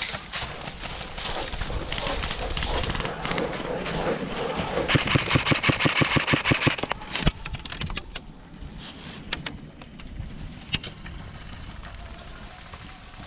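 Burst of rapid automatic airsoft fire, about two seconds of evenly spaced shots at roughly eight or nine a second, amid steady outdoor movement noise, followed by a few scattered single clicks.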